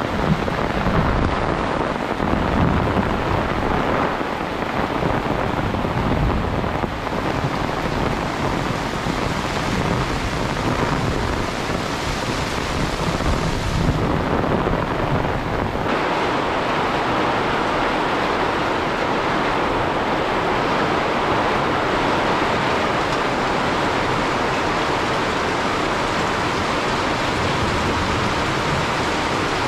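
Heavy rain falling with wind, an uneven low rumble of gusts under the hiss of the rain. About halfway through the sound changes abruptly to a steadier rain hiss without the low rumble.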